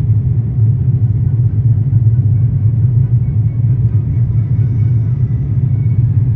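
Steady low rumble of cabin noise inside an Airbus A350-900 airliner during its descent.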